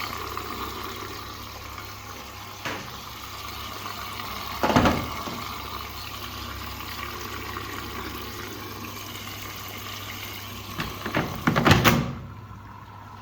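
Ramtons washing machine running with water rushing over a steady low hum, with a loud knock about five seconds in and a cluster of knocks near the end. The water noise stops near the end, leaving only the hum.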